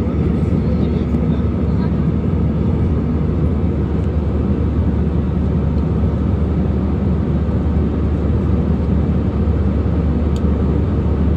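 Steady low roar of an airliner in flight heard from inside the passenger cabin: engine and airflow noise. A faint click comes near the end.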